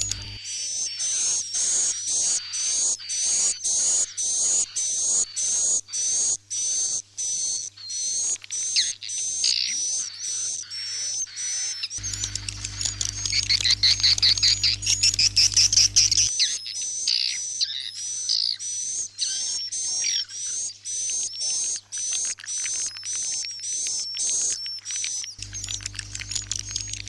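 Swiftlet roosting lure call: edible-nest swiftlet chirps repeating two to three times a second, used to coax swiftlets to stay overnight in a bird house. Around the middle there is a louder, denser stretch of twittering. A low hum comes in briefly at the start, in the middle and near the end.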